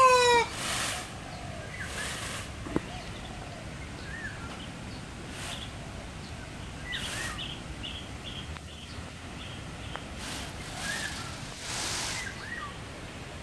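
Indian peafowl (peacock) call, a loud honk falling in pitch, ending about half a second in. Then an outdoor background with faint chirps of small birds scattered through it and several brief rustling bursts.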